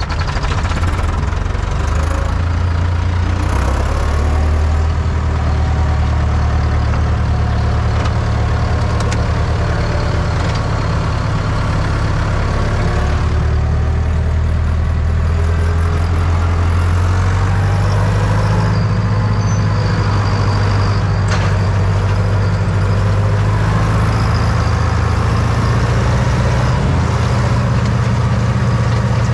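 IHC 844-S tractor's four-cylinder diesel engine running steadily while cutting and loading fresh grass, its low note shifting a little about halfway through.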